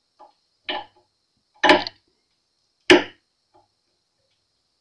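Sharp wooden knocks and clicks from the tuning machines being handled on an acoustic guitar's headstock. A couple of faint ones come first, then two loud ones about a second apart.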